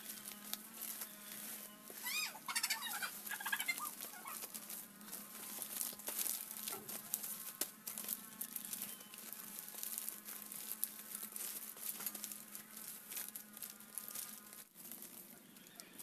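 Stiff green coconut leaves rustling and crackling as they are pulled and tucked by hand while weaving a nest. A chicken clucks in the background, most clearly about two to four seconds in.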